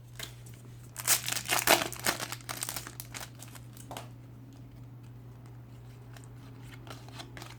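Foil trading-card packet being crinkled and torn open, a dense run of crackling about a second in lasting around two seconds, then a few clicks and quieter handling of the cards over a low steady hum.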